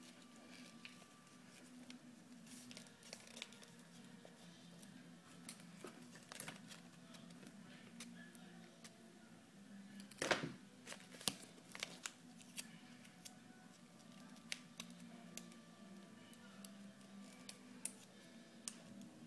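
Soft, scattered rustles and small clicks of paper being folded and creased by hand, with one louder thump about ten seconds in.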